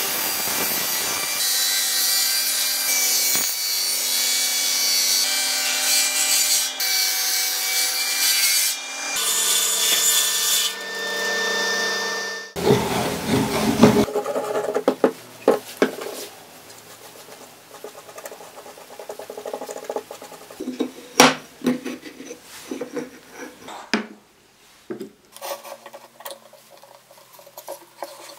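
Table saw running and cutting through a bark-covered log, a loud steady whine for about twelve seconds. After that, much quieter scattered knocks and clicks as wooden slats are glued and clamped.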